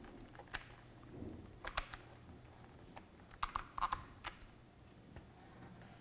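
Small plastic clicks and taps from a clear plastic SMD component storage box being handled, its compartment lids worked open, with a quick cluster of clicks about three and a half seconds in.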